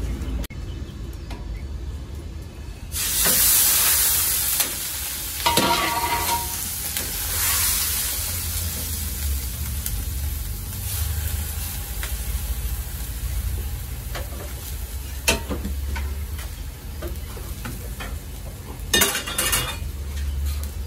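Minced meat sizzling in hot fat for Isfahani beryani, loudest for about a second and a half a few seconds in, with metal scrapes and clinks of utensils on steel pans and a steady low hum underneath.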